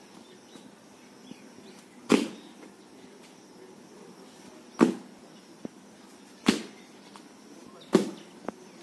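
Sneakered feet landing on an asphalt path in a series of crouching jumps: four thuds, one to two and a half seconds apart.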